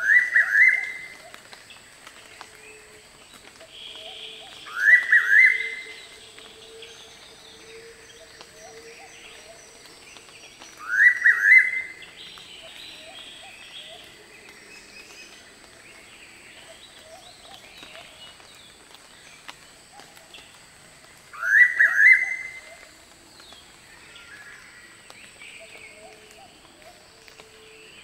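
Noisy pitta giving its 'walk-to-work' call four times, each a short run of quick rising notes, with several seconds between calls, over a faint background of other rainforest calls.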